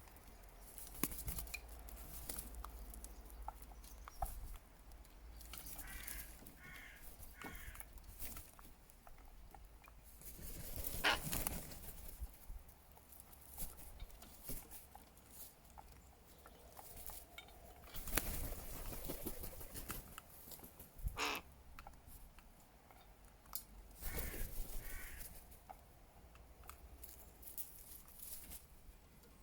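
Crows cawing: a series of three short caws about six seconds in and another three near 24 seconds, with rushing noise in between.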